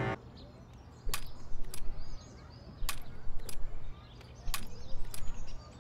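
Wheeled walking frame pushed along a tarmac path in repeated strokes about every second and a half, each a rolling rattle with sharp clacks as the frame's metal legs and rubber feet set down. Birds chirp faintly in between.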